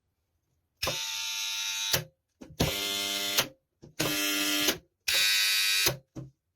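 AC contactor switched on and off four times, each time buzzing loudly for about a second while pulled in, with a sharp click as it closes and again as it drops out. The loud buzz is the faulty humming noise of the contactor.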